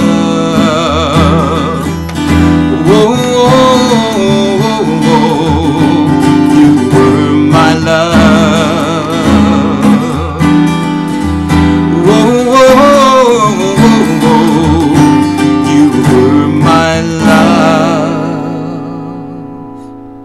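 Steel-string acoustic guitar strummed and fingered, with a man singing long held notes with vibrato over it. Near the end a final chord is struck and rings out, fading away.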